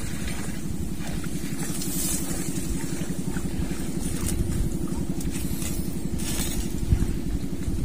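Steady low drone of a small engine running at an even speed.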